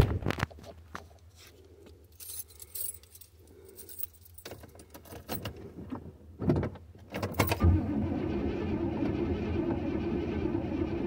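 A couple of sharp knocks, then from about eight seconds in the 1986 Chevrolet Caprice Classic's starter cranks the engine steadily for about three seconds without it firing, a failed start that the owner blames on the battery.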